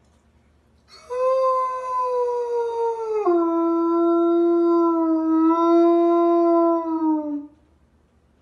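A large white wolf-like dog howling: one long howl starting about a second in, dropping to a lower pitch partway through, then holding and sagging slightly before it ends.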